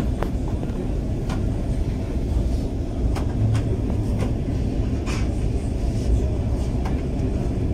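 Vande Bharat Express rolling through a station, heard from inside the coach: a steady low rumble with scattered sharp clicks.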